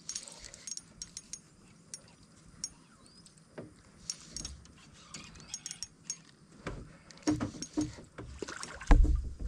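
Scattered light clicks and ticks of a spinning reel and rod being worked while a hooked fish is played. They grow busier with heavier knocks on the wooden boat in the last few seconds, the loudest a single low thump about nine seconds in.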